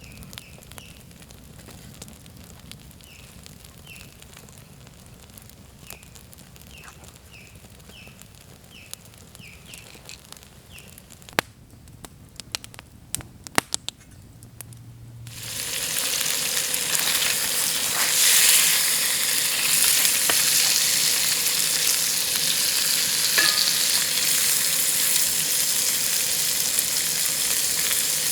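Bacon starting to sizzle in a pan over an open campfire: a loud, steady frying hiss comes in a little past halfway and holds. Before it, a few sharp clicks and knocks, and earlier a faint, quiet background with a bird chirping again and again.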